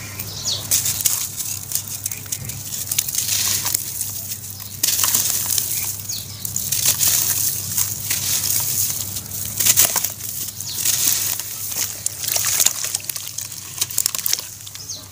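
Hands crumbling soaked slabs of charcoal ash in a basin of water: wet crunching and sloshing, with an irregular run of crackles and splashes.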